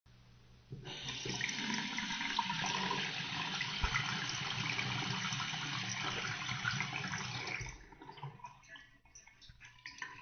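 Water tap running full into a sink for about seven seconds, then shut off, leaving drips and a trickle.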